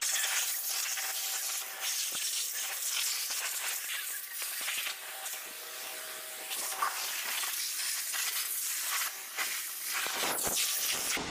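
Pressure washer spraying water over a 6.0 LS V8 engine: a steady hiss of spray that swells and eases slightly in strength.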